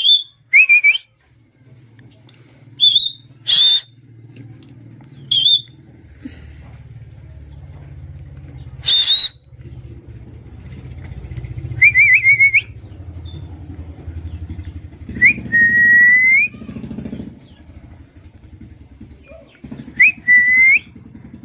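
Pet parrot giving a series of short, sharp whistles, some rising and one warbling, with a longer rising whistle a little past the middle. A low engine rumble runs underneath from about two seconds in.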